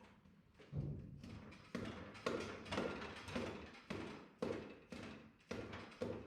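Hammer tapping repeatedly on the International Harvester 140 touch control unit to drive the pistons out of their bores: about a dozen sharp knocks roughly half a second to a second apart, each ringing briefly.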